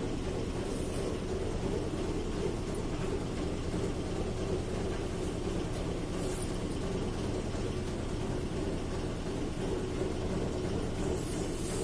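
Steady low mechanical hum at an even pitch and level, with a few faint brief rustles over it.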